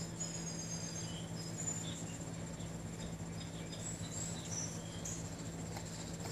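Outdoor garden ambience: a continuous high, fast-pulsing insect trill over a steady low hum, with short high chirps scattered through.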